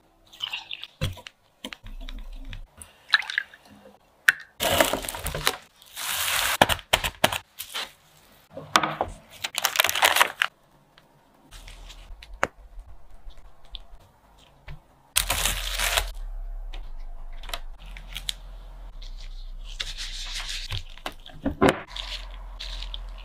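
Kitchen preparation sounds in a series of short takes: ingredients poured into a glass bowl and mixed, a sheet of sponge cake handled on baking paper, and gloved hands squeezing and pulling sticky mochi dough. Several loud rustling, scraping bursts come between about five and ten seconds in, with a low hum under the later takes.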